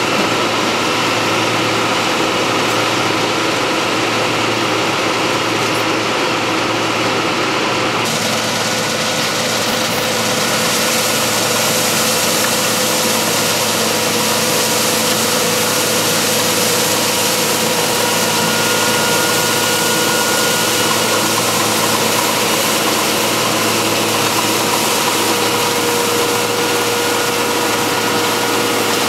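Farm machinery running steadily, an engine hum with steady whining tones over it. About eight seconds in the sound turns suddenly brighter and hissier, then runs on unchanged.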